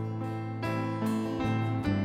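Acoustic guitar softly strummed about twice a second over held electric bass notes, in a slow, gentle worship song.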